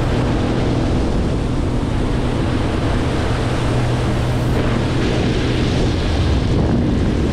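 Outboard motor driving an aluminium Skylla boat at speed: a steady engine tone under loud wind noise on the microphone and rushing water.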